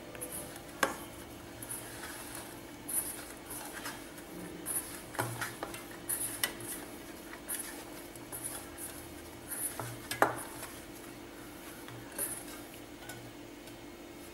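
Fingers rubbing and squeezing crumbly rice-flour dough against a stainless steel bowl, with scattered scrapes and a few sharp clinks of the bowl, the loudest about ten seconds in. A faint steady hum runs underneath.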